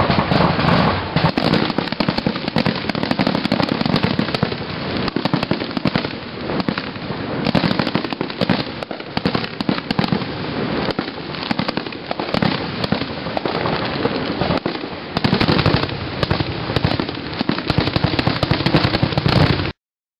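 Fireworks display: a rapid, continuous barrage of bangs and crackling, cutting off suddenly near the end.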